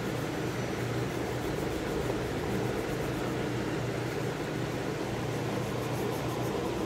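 A steady mechanical hum with an even airy noise underneath, unchanging throughout.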